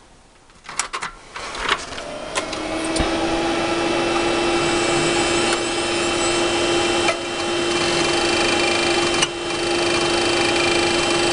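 An old desktop PC powering up: a few clicks, then its fans and Western Digital Caviar 21200 IDE hard drive spin up into a steady hum with a held tone, with a sharp click about three seconds in during the drive's power-on seek test. This clink is new to the drive, and the owner fears it is the start of the click of death, though a surface scan found no bad sectors.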